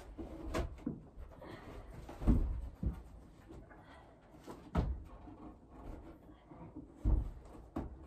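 Footsteps on wooden stairs and bumps of a bulky piece of furniture being carried up them: scattered knocks with a few heavy thuds, the loudest about two seconds in and another near the end.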